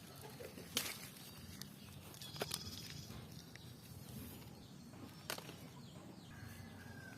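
Faint ambience: a low steady hum with three sharp clicks or knocks, and a short thin whistle-like tone near the end.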